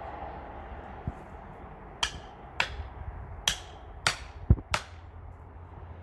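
A run of about six sharp knocks at uneven intervals, one of them a deeper thud, over a steady low hum.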